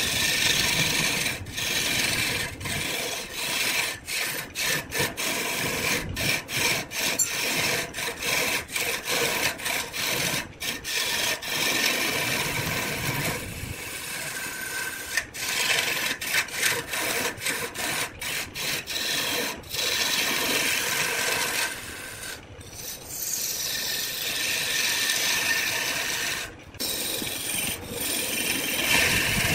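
Turning chisel cutting into a spinning wood blank on a wood lathe: a steady scraping hiss of wood shavings being cut away. It breaks off briefly many times, with longer pauses about two-thirds of the way through and near the end.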